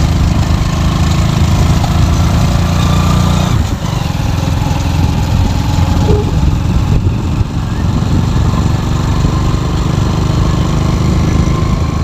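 A motor vehicle engine running steadily, loud and low-pitched.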